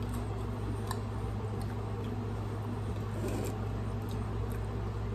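Someone chewing a mouthful of pastry-wrapped hot dog, with a few soft, wet mouth clicks, over a steady low hum.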